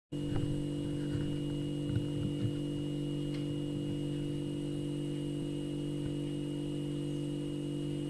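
Refrigerator humming: a steady low hum with a faint high whine above it, and a few light ticks in the first few seconds.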